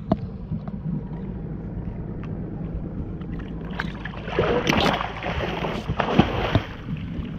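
Boat engine running steadily at a low idle, with water moving against the hull. About four seconds in, a louder stretch of splashing noise with a few sharp knocks lasts a couple of seconds.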